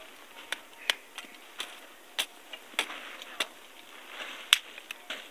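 Dry firewood sticks snapping and knocking as they are broken and laid on a stone hearth: about eight sharp cracks at uneven intervals, the loudest about four and a half seconds in.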